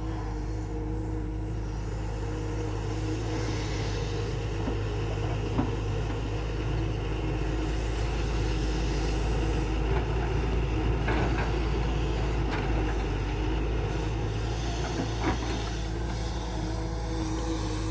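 Heavy diesel engine of a tracked excavator running steadily under load, with a few sharp knocks scattered through it.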